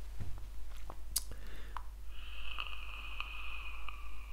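Air drawn steadily through a pipe held at the lips, a steady airy whistle lasting about three seconds from about two seconds in, after a few small clicks of handling.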